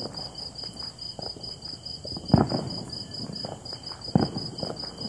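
Crickets chirping in a steady, high, pulsing trill, about seven pulses a second. Two sharp thumps cut through, about two and a half seconds in and again near four seconds.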